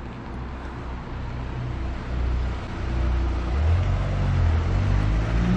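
A car driving slowly through a town street towards the listener, its engine and tyre rumble growing louder over the second half.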